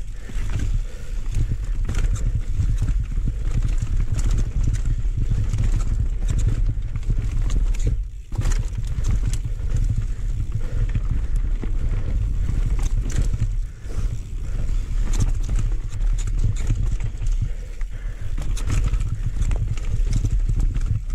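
Mountain bike descending a dirt trail at speed: wind rumbling on the rider's camera microphone, with the tyres on dirt and the bike clattering and rattling over bumps. The noise dips briefly twice, about 8 and 14 seconds in.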